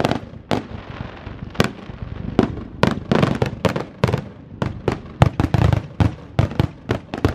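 Aerial fireworks shells bursting in a rapid, uneven string of sharp bangs, coming thicker from about three seconds in.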